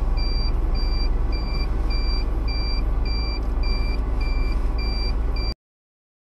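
A high electronic warning beep repeating just under twice a second over the steady low rumble of a car's engine and road noise heard inside the cabin. Both cut off abruptly near the end.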